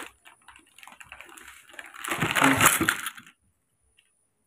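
Crackling, rustling handling noise: light crackles at first, then a loud crackly burst about two seconds in that cuts off abruptly a second later.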